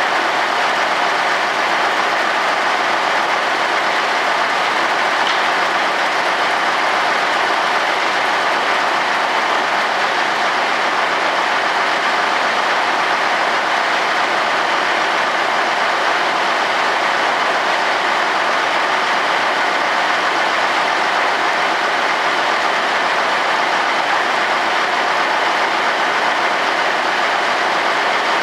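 Loud, steady machinery noise running without change, with no distinct knocks or pitch: the unloading of a wood-chip trailer.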